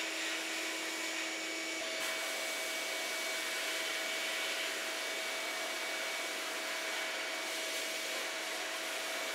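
Sandblast cabinet running: a steady hiss of air and abrasive blasting a small steel tractor part, with a steady hum underneath.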